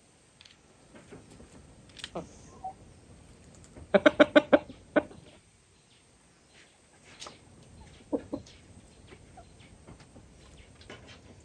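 Rooster clucking. About four seconds in comes a quick run of about seven loud clucks, with a few single softer clucks before and after.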